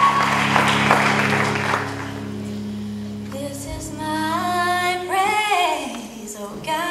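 Applause fades out over the first two seconds over a steady low drone. Then, about three seconds in, a female gospel soloist begins singing alone into a microphone in a slow line that slides and bends in pitch.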